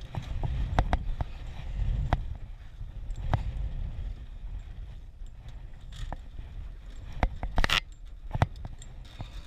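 A crab-pot rope being hauled hand over hand into an aluminium dinghy and dropping in coils on the deck. It comes with scattered knocks and clunks against the hull, the loudest a clatter near the end, over a low rumble that is strongest in the first few seconds.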